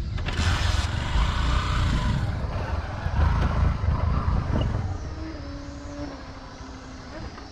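Kawasaki ZX-6R 636 inline-four with a de-catted Carbox Race long exhaust passing at speed. Loud for about the first four and a half seconds, then fading as it moves off into the distance.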